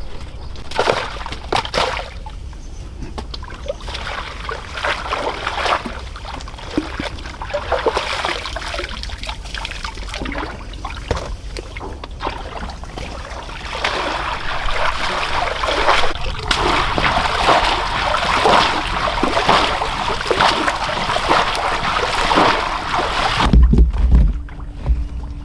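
Water splashing and sloshing in many small, irregular splashes, busier and louder in the second half. A low rumble comes in near the end.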